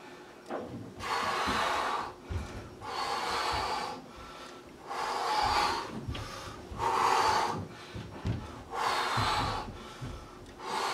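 A man breathing hard from the strain of tricep dips: five long, heavy breaths, about one every two seconds.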